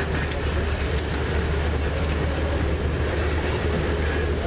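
A tourist road train heard from aboard its moving carriage, running along a road: a steady low drone from the engine and running gear, mixed with road noise and faint light rattles.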